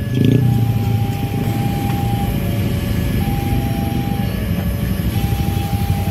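Level-crossing warning alarm sounding in long, evenly spaced beeps, each about a second long. Under it is the low rumble of idling motorcycles and cars queued at the crossing.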